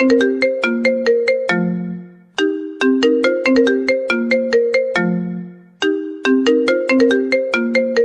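Instrumental mobile phone ringtone melody: a quick run of notes ending on a held low note that fades, the phrase repeating about every three and a half seconds.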